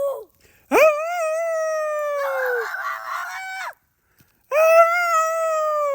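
High-pitched voices giving long drawn-out cries. There are two cries, each held for two to three seconds at a fairly steady pitch, and the second one slides down at its end.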